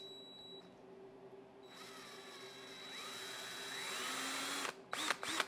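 Cordless drill driving a speedometer cable. About two seconds in it starts up, and its whine climbs in pitch as it speeds up, then it stops abruptly about a second before the end, followed by two short spurts. The cable spins freely, turning the speedometer.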